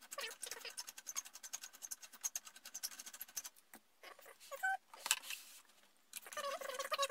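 Rapid clicking and rattling of hard plastic and metal as a hand works at the CPU cooler and its fastenings inside an open desktop PC case. It is dense for the first few seconds, then turns to quieter handling with a few knocks.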